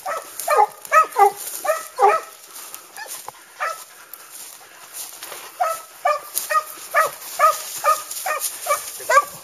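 Leashed dogs yelping over and over in short, high excited calls, about two or three a second, with a brief lull near the middle.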